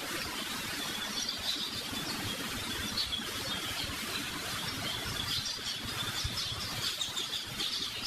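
Small birds chirping, short high calls repeated irregularly over a steady background hiss.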